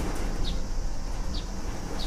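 Low rumbling and rattling of a room and its contents shaking during an earthquake, with two short high chirps about a second apart.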